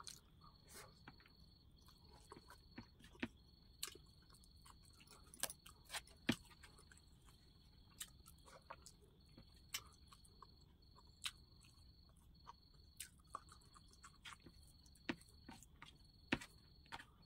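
Quiet eating by hand: rice and vegetables being chewed, heard as scattered faint clicks and smacks at irregular intervals.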